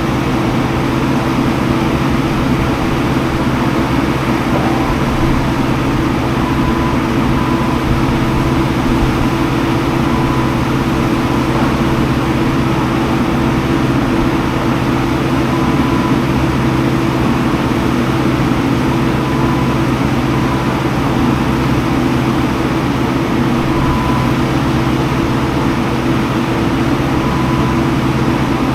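Skid steer engine running steadily under load, with a few faint short high beeps now and then.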